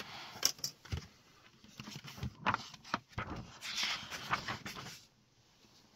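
Cloth rustling with a few light knocks and clicks from a jacket-sleeved arm moving close by; it stops about five seconds in.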